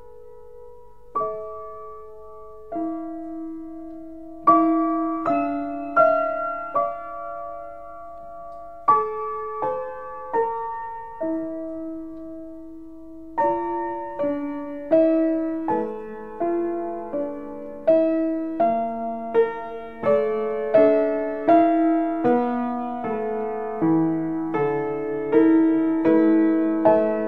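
Solo piano improvisation: single notes and chords that ring on, slow and sparse at first, then busier and a little louder from about halfway through.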